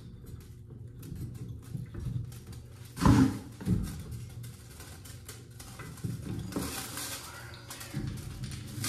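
Basin wrench working a supply-line nut under a sink: small metal clicks and scrapes as the fitting is loosened, with two louder knocks about three seconds in.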